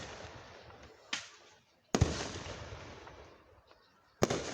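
Aerial fireworks shells bursting: a sharp bang about a second in, a louder boom about two seconds in that fades out slowly, and another boom near the end.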